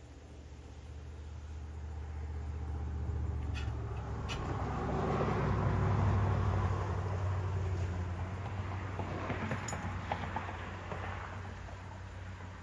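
A motor vehicle passing by with a low engine hum, growing louder to a peak about halfway through and then fading away.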